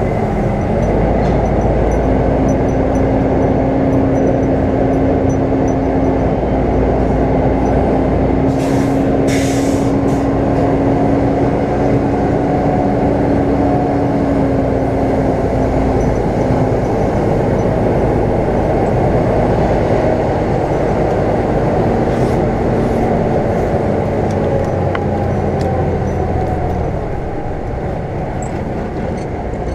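Semi truck's diesel engine running as the rig moves slowly, a steady low drone with an engine note that drifts slightly lower over the stretch. Two brief high hisses sound about nine seconds in, and the drone eases off near the end.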